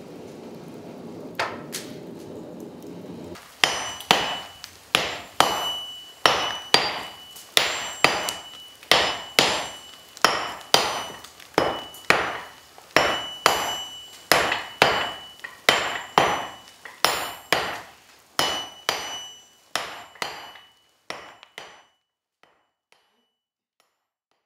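A steady rushing noise from the charcoal forge fire, then, about three and a half seconds in, a long run of hammer blows on steel at the anvil, roughly two a second, each with a bright metallic ring; the blows grow fainter and sparser near the end.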